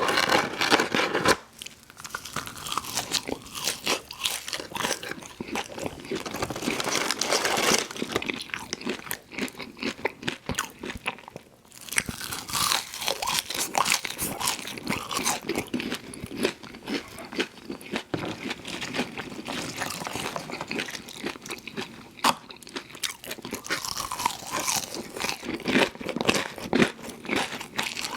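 Close-miked biting, crunching and chewing of crispy fried food, the crackly crunch of the breaded coating dominating, with a short lull about twelve seconds in.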